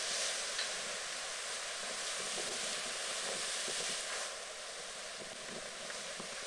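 Storm waves breaking over a concrete wall and surging across a flooded slipway: a steady rush of surf with wind, easing a little after about four seconds.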